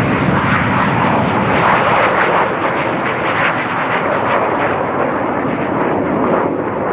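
Two Kawasaki T-4 jet trainers taking off in formation, their twin turbofan engines at takeoff power: a loud, steady jet roar with crackle, growing duller as the pair climbs away.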